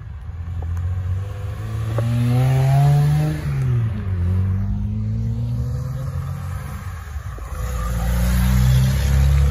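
A Mazda MX-3 coupe accelerating away hard, its engine revving up and dropping sharply at a gear change about three and a half seconds in, then climbing again. Near the end a Mk1 Volkswagen Golf pulls off with a louder, lower engine note.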